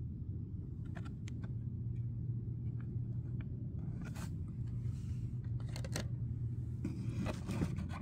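Cardboard-backed plastic blister packs being handled: scattered light clicks, crinkles and rustles over a steady low hum.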